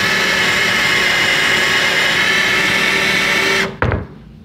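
Power drill running steadily in reverse under a hard load, turning a Grabit Speedout screw extractor bit into a rusted, rounded-off screw head. The motor stops suddenly about three and a half seconds in, followed by a short knock.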